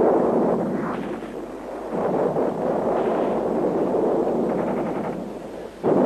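Battle sound: a dense, continuous rumble of gunfire and explosions that dips about a second and a half in, swells again, and fades near the end.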